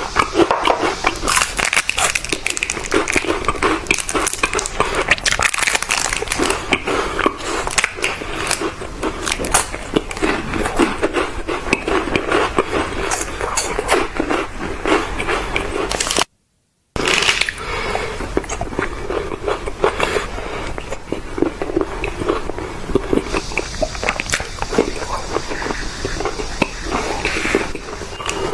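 Close-up eating sounds: continuous biting and chewing of crunchy sweets, with dense crackling and crunching. The sound cuts out abruptly for under a second a little past halfway, then resumes.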